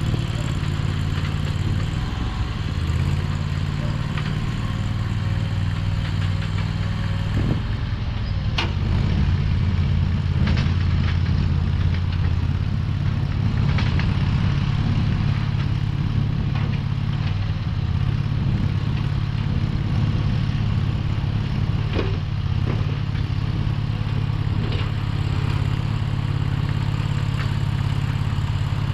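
Mini skid steer's engine running steadily at a low idle-like hum, its note shifting slightly about a quarter of the way in. A few sharp metallic clanks sound over it.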